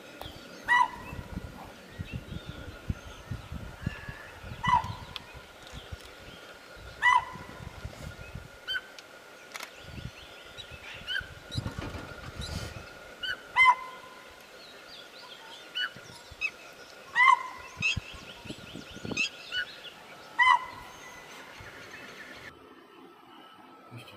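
Spotted deer (chital) giving short, sharp, honking calls: a loud call every two to three seconds with fainter ones between, over a faint steady whine. The calls stop shortly before the end.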